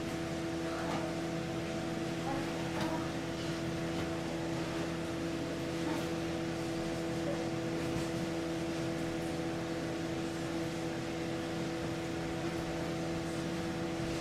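Steady electric motor hum of a household appliance or fan, holding several fixed pitches, with a few faint ticks.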